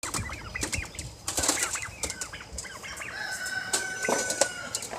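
Young turkeys chirping with many short calls amid wing flapping and scuffling. A single long, steady note is held for about a second and a half in the second half.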